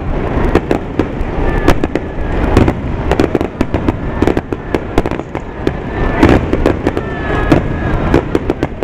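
Aerial firework shells bursting overhead in quick succession: a dense run of sharp bangs and crackles over a constant low rumble.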